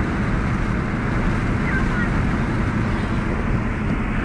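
Steady road and engine noise heard inside a moving car's cabin at highway speed: an even rumble with tyre and wind hiss.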